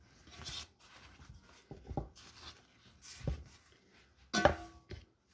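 Soft rustling and light taps of hands coiling a rolled, cheese-filled lavash into a greased round baking pan, with a sharper knock against the pan a little over four seconds in.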